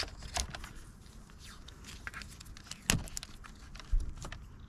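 Electrical tape being pulled off its roll and wrapped around a bundle of wires: scattered crackles of tape peeling, with a few sharp clicks and knocks, the loudest about three seconds in.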